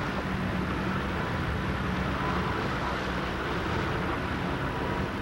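A motorboat's engine running at a steady drone, with a constant rush of wind and water noise over it.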